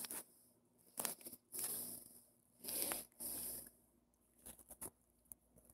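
A few short, soft rustling bursts: handling noise of the phone rubbing against the pillow and hair close to the microphone.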